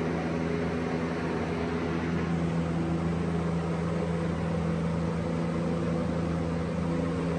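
A 15-kilowatt electric shop heater and the inverter feeding it, running under a heavy surge load: a steady hum with a strong low tone under fan noise.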